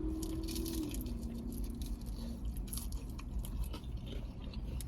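Close-up chewing and biting of crispy battered fried bang bang shrimp and chicken, with many small irregular crunches. A low steady hum drops in pitch about a second in and fades out a little after two seconds.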